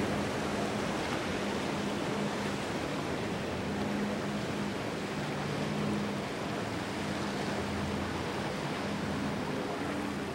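Cruisers Yachts 45 Cantius express cruiser running at speed: the rush of its wake and spray over the water, with a low, steady engine hum underneath.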